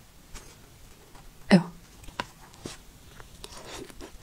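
Quiet eating sounds: a metal spoon scooping soft yellow cake, with a few faint small clicks. One short vocal sound about a second and a half in.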